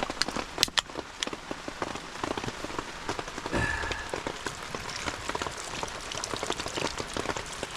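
Heavy rain falling, a dense, continuous pattering of drops, with one dull thump about three and a half seconds in.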